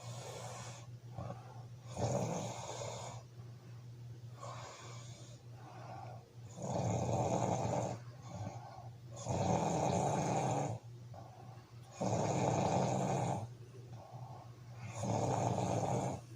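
A man snoring in his sleep: five loud snores, each about a second long, coming roughly every three seconds with quieter breaths between them, over a steady low hum.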